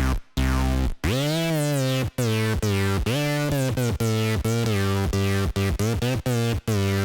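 Arturia MiniFreak synthesizer playing a factory preset: one long note, then a run of short repeated notes about two a second, each with its tone sweeping up and back down.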